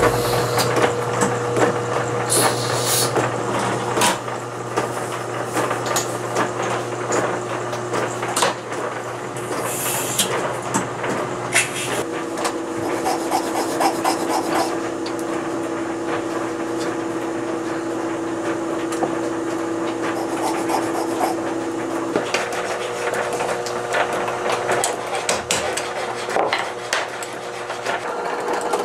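Hand filing and scraping at a workbench, with scattered light taps and knocks of tools over a steady background hum.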